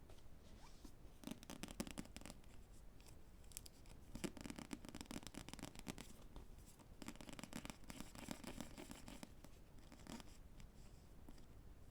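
Rapid tapping on books in several quick flurries of soft clicks, with short pauses between them.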